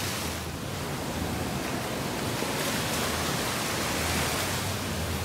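Steady rush of wind and sea waves washing, with some low wind rumble on the microphone.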